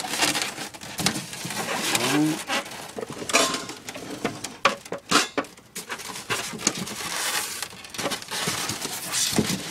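Handling noise: irregular clicks, knocks and rustles as an electrical plug and cord are hooked up to a homemade styrofoam-cooler air conditioner.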